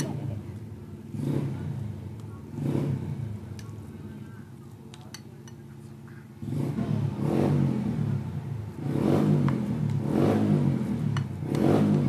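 An engine running and revving in repeated swells, steady-pitched between rises, and louder and longer from about halfway. Faint clinks and scrapes of a spoon against a ceramic bowl are heard under it.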